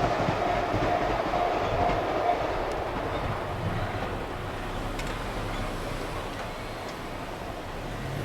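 A JR Ryomo Line train running over the level crossing and away, its wheel-on-rail rumble fading steadily. The crossing's warning bell rings until about two seconds in, then stops.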